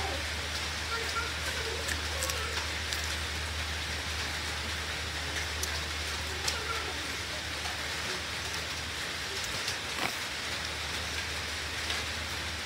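Steady rain falling, an even hiss with scattered faint clicks and a steady low hum underneath.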